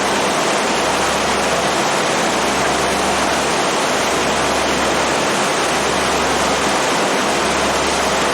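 Steady rushing of water and wind along a passenger boat under way, over a steady low hum.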